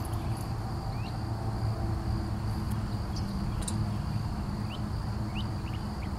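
Outdoor ambience: a steady high insect-like trill and a few short rising bird chirps over a steady low rumble.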